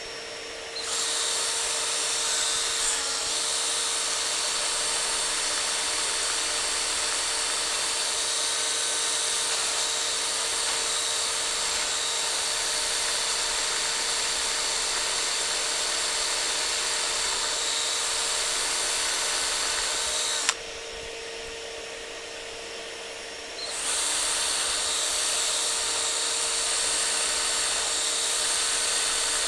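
Power drill with a grinding bit running steadily against a steel rivet, grinding it away; it starts about a second in, stops for about three seconds past the middle and starts again. A vacuum runs steadily underneath.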